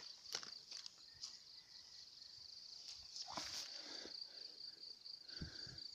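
Insects chirring in a steady, even, high buzz. Over it come brief rustles and a couple of soft low thumps as a snakehead fish is grabbed and lifted from the grass.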